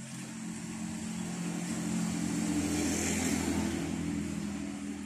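A motor vehicle passing by: its engine hum and road noise grow louder to a peak about three seconds in, then fade away.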